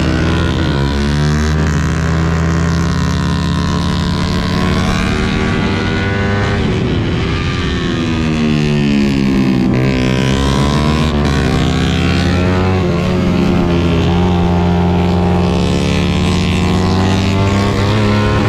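Suzuki GSX-R150's single-cylinder engine running hard under load, its note falling and climbing again several times through the gears.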